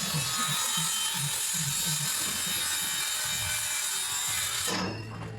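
Electric power saw running through timber, with a steady high whine, stopping about four and a half seconds in.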